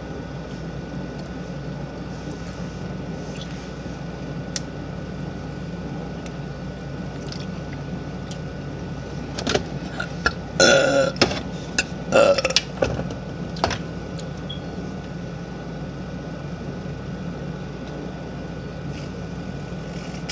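A young woman burping: two long, loud burps close together about halfway through, with a short one just after, over a steady low background hum.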